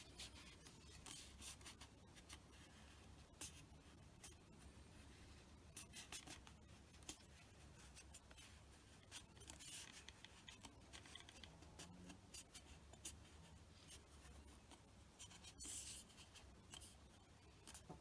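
Faint rubbing and crinkling of vinyl wrap film as fingers press and smooth it onto a tennis racket frame, heard as scattered short scratchy rustles.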